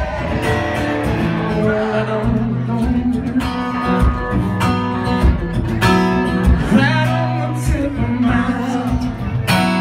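A live rock band playing: electric guitar and bass over a drum beat, with singing.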